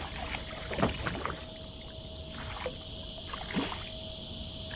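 A hooked fish splashing and thrashing at the water's surface beside a kayak, in several short bursts.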